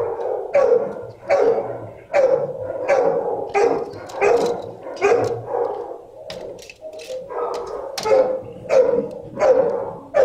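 A dog barking over and over at a steady rate, roughly one bark every three-quarters of a second, each bark echoing in a hard-walled shelter kennel.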